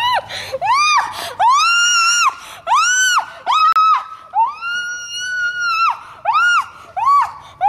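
A young woman screaming, over and over. It is a string of short high screams with one long scream of about two seconds in the middle, as she is grabbed from behind and her mouth is covered.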